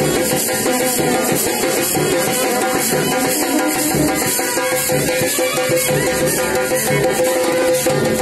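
Music with rattling, shaker-like percussion and drums over a steady held note.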